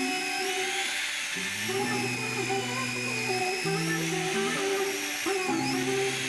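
Background music over the high-pitched whine of a Sanyo water-pump motor driving a homemade sharpener. The whine dips in pitch twice, briefly near the start and again near the end.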